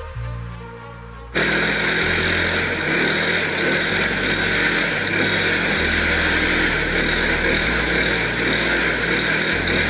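A push lawnmower's small petrol engine running loudly, with a dense mechanical noise that cuts in about a second in. Electronic background music with a stepping bass line plays underneath.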